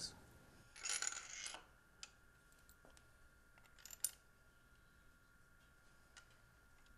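Hand tools and steel tool parts clinking and scraping against the open aluminium cam chest of a Harley-Davidson Twin Cam engine while a bearing puller is set up on the inner cam bearings. A short scraping rattle comes about a second in, then single clicks near two seconds and four seconds, the one at four the sharpest.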